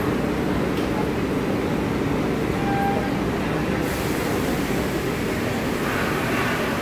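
Steady rumble of an MBTA Orange Line subway train at the platform, with a faint murmur of the waiting crowd.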